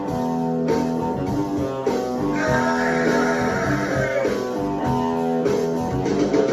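Guitar music: an instrumental passage of plucked and strummed guitar, with a brighter layer entering about two and a half seconds in and fading out a couple of seconds later.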